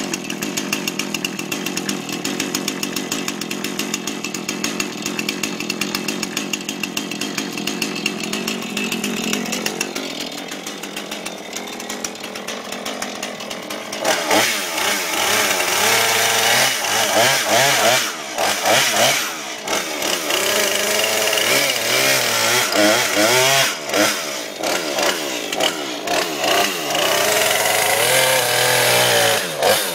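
Husqvarna chainsaw running steadily, then from about 14 seconds in revving up and dropping back again and again as it cuts into a giant pumpkin.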